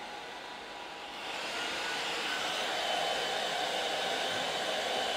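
Handheld hair dryer blowing hot air into a steel pot of chocolate to rewarm it for tempering. It is a steady blowing noise with a thin high whine, and it gets louder about a second in.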